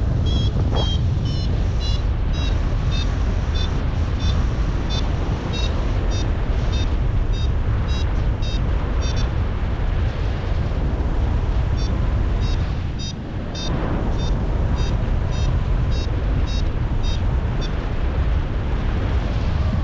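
Paragliding variometer beeping rapidly, about three short high beeps a second, the sound it makes while signalling climb, over steady wind rumble on the microphone in flight. The beeps stop for a couple of seconds around the middle, then start again.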